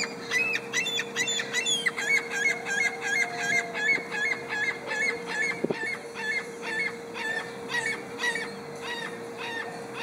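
Ring-billed gull giving its long call: a rising opening cry, then a long run of repeated calls about three a second that slow and fade near the end.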